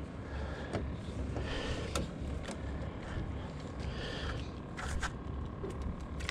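Steady wind rumble on the microphone, with scattered light knocks and scrapes.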